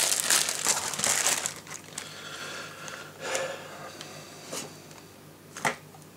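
Wrapping crinkling and rustling as the camcorder is unpacked, loudest for the first couple of seconds, then quieter handling with a few sharp clicks.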